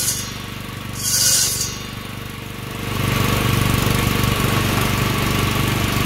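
Small engine running a saw-blade mower deck. There is a short hiss at the start and another about a second in as a wooden block is pushed against a spinning saw blade. About three seconds in, the engine is throttled up and runs louder and steadier with the blades turning.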